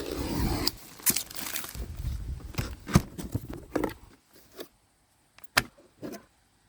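Packaging being handled while unboxing an angle grinder: rustling with many sharp clicks and knocks, then only a few separate clicks after about four seconds. The grinder is not running.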